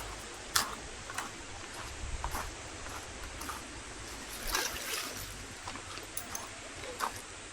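Steady rain with scattered drips and splashes landing close by.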